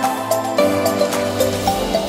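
Background music: a light electronic track with a quick repeating melody of short notes over a sustained bass note.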